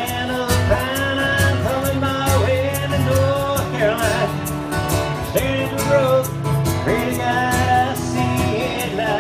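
Live band playing a country-style song: strummed acoustic guitar with a voice singing over a steady beat, amplified through PA speakers.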